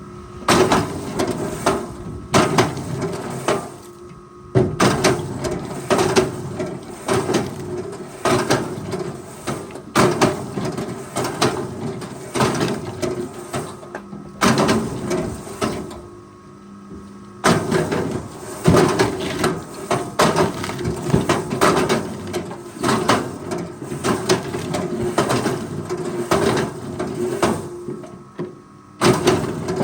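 Forestry machine at work, with repeated knocking and clattering in bursts several seconds long, broken by short pauses, over a faint steady hum.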